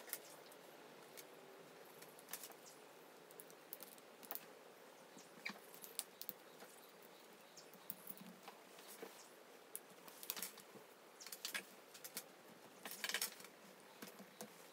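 Small parts of a 1:6 scale M82A1 model rifle clicking and tapping as they are handled and set down on a wooden table: faint scattered light clicks, busier in the second half.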